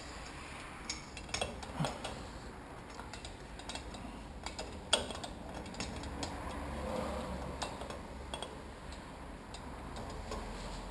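A few scattered light metal clinks and taps from hand tools and steel fork parts being handled while an upside-down motocross fork's damper is being screwed back together.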